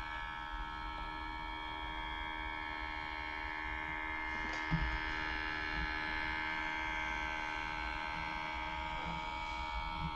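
HP Pavilion x360 13 laptop's cooling fan making a terrible steady buzzing hum, a cluster of held tones, swelling a little in the middle. The buzzing is the sign of a faulty cooling fan, which the owner goes on to replace.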